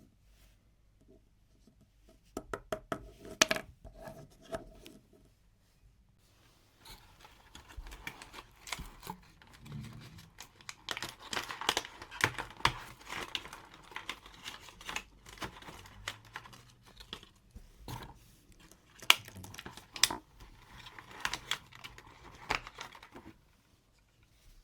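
Toy packaging being unboxed by hand: a few sharp clicks and knocks about two seconds in, then a long stretch of packaging tearing and crinkling, with scattered sharp clicks, that stops shortly before the end.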